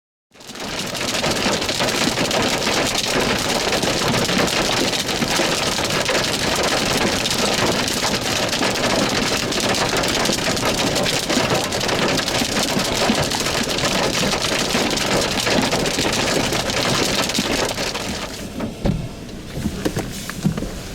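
Heavy rain pouring down as a dense, steady hiss that starts abruptly and eases about eighteen seconds in, leaving scattered heavier drops or knocks.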